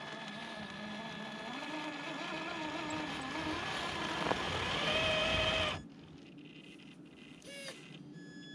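Electric motor and gears of a radio-controlled crawler truck whining, climbing in pitch with the throttle for about six seconds, then cutting off suddenly. Near the end comes a brief rising-and-falling whine, with a faint steady high tone behind it all.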